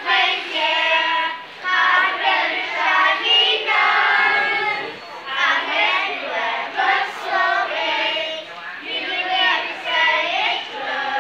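Children's choir singing together, a group of young voices in phrases that rise and fall.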